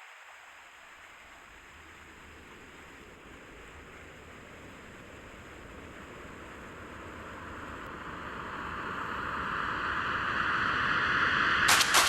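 Rushing water of a mountain stream or waterfall: a steady hiss that grows gradually louder. Sharp clicks start right at the end.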